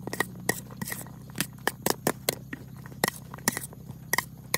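Metal spoon stirring chopped cucumber and berries in a steel plate: irregular clinks and scrapes of spoon on plate, several a second.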